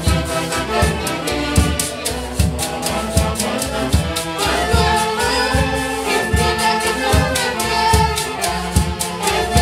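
Andean festival orchestra playing dance music, with a steady beat under a held melody line.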